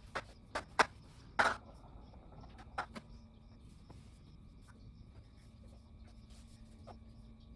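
Several sharp knocks or taps in the first three seconds, the loudest about a second and a half in, then a faint steady hum.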